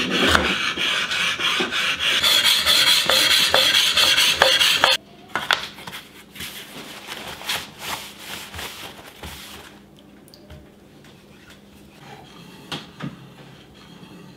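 Whetstone and workbench handling noises. There is loud scraping and rubbing with rapid clicks for about five seconds, ending abruptly. After that come quieter knocks and rubs as the wet sharpening stone is set on its wooden base and wiped.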